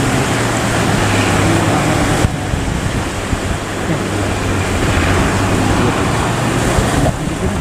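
Boat engine running steadily with a low, even hum, under loud wind and rushing sea water; the hiss drops slightly about two seconds in.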